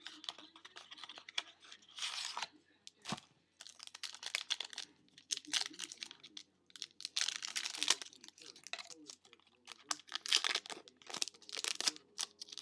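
Trading-card mini box packaging being torn open and handled: irregular bursts of tearing and crinkling with a few sharp clicks.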